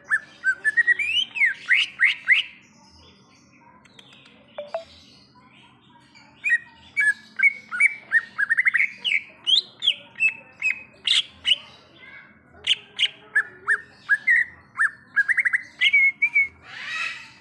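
Green leafbird (cucak ijo) singing: a quick, varied run of chirps and whistles. A short burst comes first, then a pause of a few seconds, then a long stream of rapid notes.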